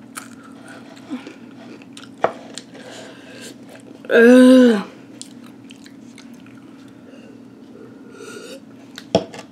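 A person chewing spicy chips with soft, scattered crunching clicks. About four seconds in comes one short voiced groan that drops in pitch at the end, in discomfort from the burning spice. Near the end comes a sip from a paper cup.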